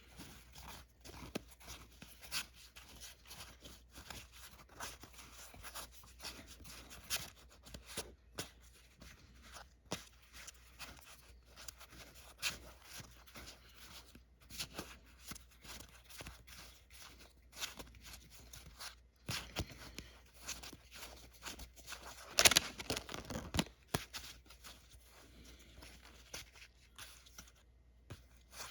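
Final Fantasy trading cards being handled and flipped through by hand: a steady run of faint, soft clicks and rustles of card against card, with one louder click past the middle.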